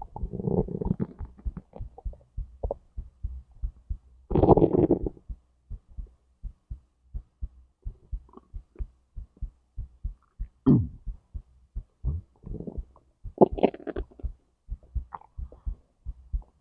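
Stomach and intestinal gurgling over a steady, regular heartbeat thump. Longer gurgles come about half a second in and again about four and a half seconds in, with shorter squelches later on.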